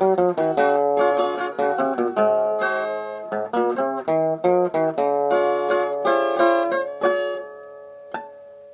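A Brazilian viola played solo as the closing instrumental run of a song: a quick series of plucked single notes that ends and rings out about seven seconds in, then one last plucked note.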